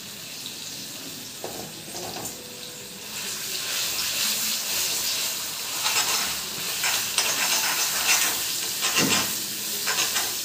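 Ground gongura chutney sizzling in hot tempering oil in a cast-iron kadai while a metal spatula stirs and scrapes it around the pan. The frying hiss grows louder about three seconds in.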